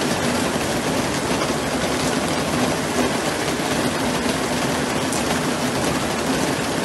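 Fast floodwater rushing down a street in heavy rain: a dense, steady rush of water with a faint low hum underneath.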